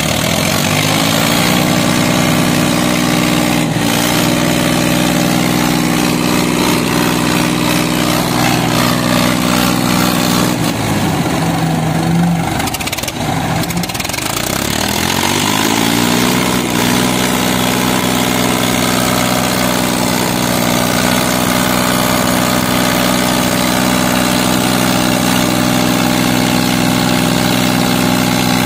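Tractor diesel engines pulling against each other in a tug-of-war. The engine note climbs about a second in and holds steady. It drops and labours about eleven seconds in, then climbs back up a few seconds later and runs steady again.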